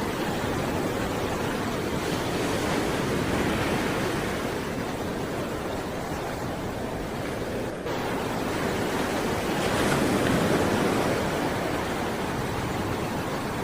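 Sea waves breaking on the shore: a continuous rush of surf that swells louder a few seconds in and again about ten seconds in.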